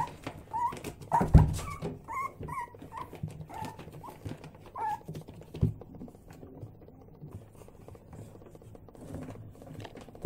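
Six-week-old Yorkshire terrier puppies yipping and whimpering in a string of short high calls through the first five seconds or so, with scuffling and knocks; a thump about a second in is the loudest. The calls stop after about five seconds.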